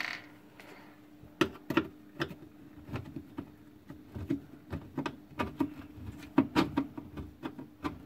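Irregular light clicks and knocks of a screwdriver and hands working at the sheet-metal back panel of a washing machine, over a faint steady hum.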